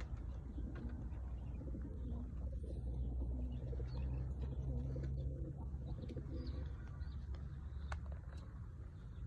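Domestic pigeons cooing, a low, continuous murmur of several birds.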